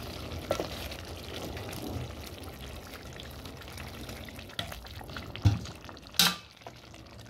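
Pot of tomato sauce bubbling on the fire as water is poured in from an aluminium kettle and stirred with a wooden spoon, with small scrapes and clicks. A loud thump about five and a half seconds in and a sharp metallic clatter just after, as the kettle is set down.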